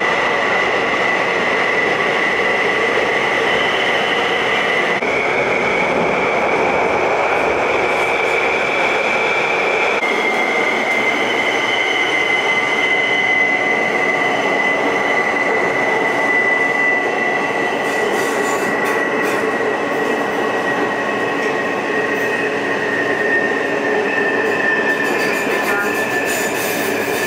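A New Taipei Metro Circular Line train running, heard inside the car: a steady rush and rumble of the moving train with a high whine that shifts pitch in steps during the first ten seconds and then slowly falls.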